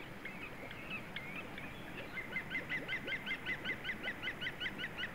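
Green woodpecker calling: scattered short notes, then from about two seconds in its laughing 'yaffle', a fast even series of about seven short notes a second.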